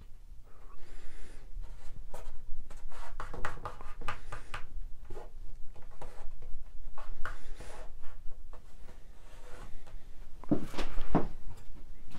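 Hands pressing and rubbing a glued strip of astragal moulding into place along a wooden door frame: scattered light scratching and rubbing of skin on wood, with a few louder knocks near the end.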